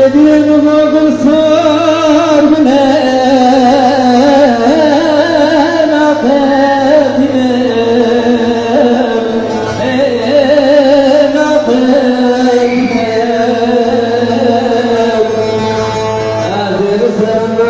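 A voice singing into a microphone over a PA, one long ornamented vocal line with heavy, wavering vibrato, backed by a steady low accompaniment.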